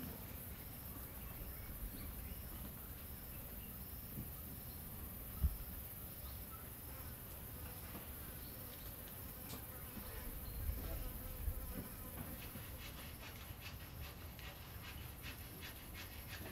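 Insects calling: a steady high-pitched buzz, with a soft chirp repeating at an even pace through the first half and rapid ticking calls in the last few seconds. A single dull thump about five seconds in.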